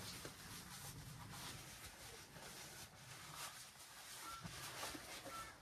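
Faint rustling of tent fabric as a rolled-up window cover is handled, over a low steady background rumble.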